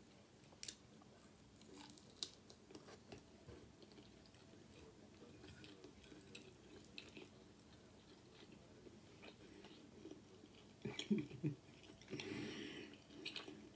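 Close-miked, quiet chewing of fried chicken chunks, with soft wet mouth sounds and scattered small clicks, and a louder cluster of eating sounds near the end.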